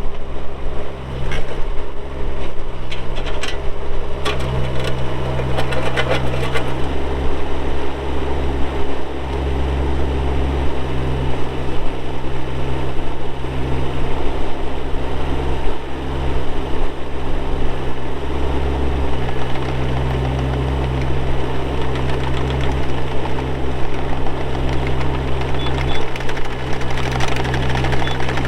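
Bobcat E20 mini excavator's Kubota diesel engine running steadily, its note swelling and easing every few seconds as the machine is worked. There is some light clanking in the first several seconds.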